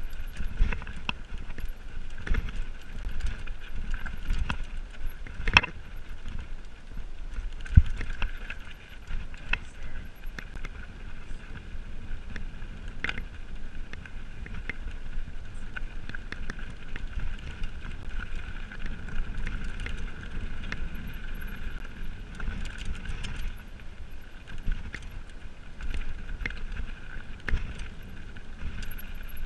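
Mountain bike riding down a rocky dirt singletrack: tyres running over dirt and stones with a steady high buzz, and sharp knocks and rattles from the bike as it hits rocks, the loudest about six and eight seconds in.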